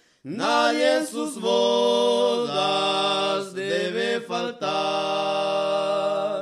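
A cappella singing of a Spanish-language gospel hymn: one sung phrase of held notes with glides between them, set off by a short break before and after.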